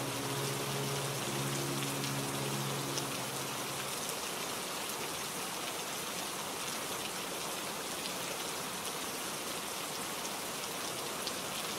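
Steady rain falling, an even hiss of drops. A few low held musical notes fade out about three to four seconds in, leaving only the rain.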